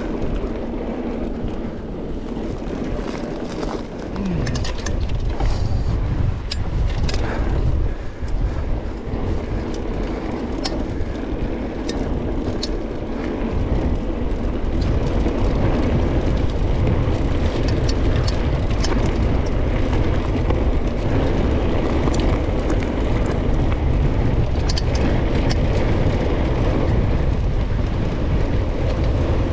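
Mountain bike descending an off-road track: tyres rumbling over the ground and the bike rattling, with scattered sharp clicks and knocks. A heavy low rumble, wind buffeting the camera microphone, grows louder about halfway through as the speed builds.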